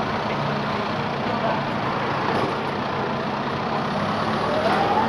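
John Deere tractor with a front loader, its diesel engine running steadily as it drives slowly past, with a rising whine near the end.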